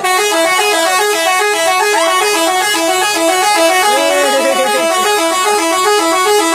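Indonesian bus 'telolet' horn, a multi-tone musical air horn, loud inside the bus, playing a fast tune of short stepped notes without a break.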